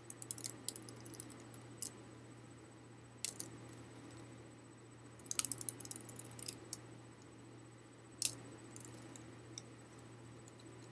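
A folding paper hand fan with bamboo ribs being flicked open, shut and swung, its ribs clicking and rattling against each other in short clusters, the busiest flurry about halfway through.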